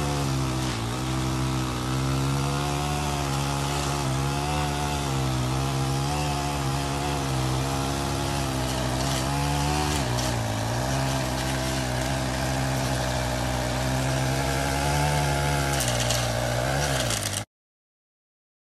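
Small gas engine of a handheld straight-shaft lawn edger running at high speed, its pitch dipping briefly a few times as it works. It cuts off suddenly near the end.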